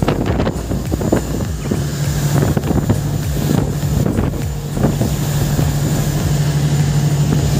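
Speedboat running at speed: water rushing and splashing in its wake, with wind buffeting the microphone. A steady engine hum comes in about two seconds in.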